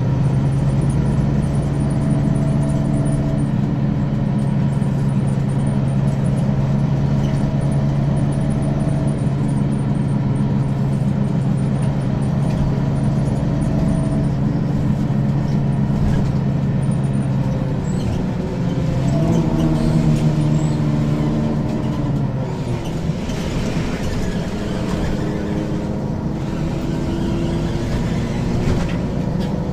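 Diesel engine of an Ikarus 435 articulated bus with a ZF gearbox, running steadily under way. About two-thirds of the way through, the engine note dips and then climbs again, with more road and air hiss afterwards.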